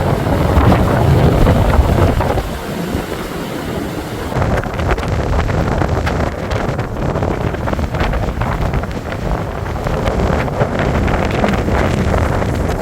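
Blizzard wind gusting hard against the microphone, a heavy rumbling noise that rises and falls and is loudest in the first two seconds.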